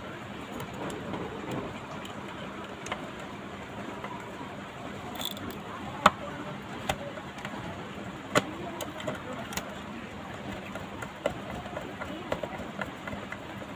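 Sharp plastic clicks and taps from the cassette mechanism and housing of a portable radio-cassette player being handled and fitted back in place, a handful spread out, the loudest about six seconds in, over a steady background noise.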